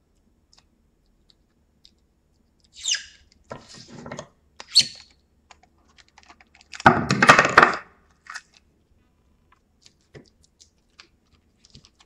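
Kapton tape being pulled off its roll and torn, in several crackling rips. The longest and loudest comes about seven seconds in, followed by faint ticks and taps.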